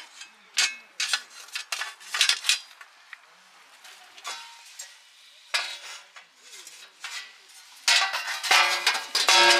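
Steel plates of a 913stuff Nemo fire bowl brazier clanking and scraping as they are fitted together: irregular metallic knocks, each with a short ring, coming thickest near the end.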